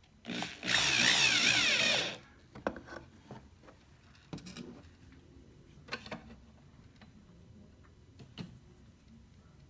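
Cordless drill driving a screw into wood for about a second and a half, the motor's pitch wavering up and down as the trigger is worked. After it come light clicks and taps of parts being handled.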